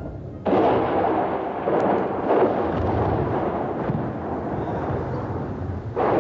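Thunder: a sudden thunderclap about half a second in, rumbling on in swells, with a second crack near the end.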